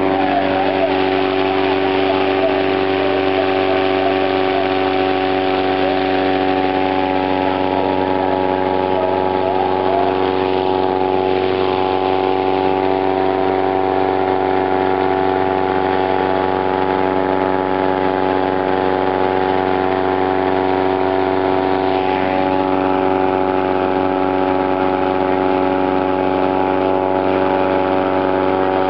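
An engine running steadily at a constant speed: an even, unchanging hum that holds one pitch throughout.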